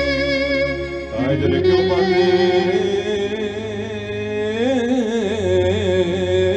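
Greek folk music on clarinet and electronic keyboard: the clarinet plays an ornamented melody with wavering pitch over sustained keyboard chords, which change about a second in.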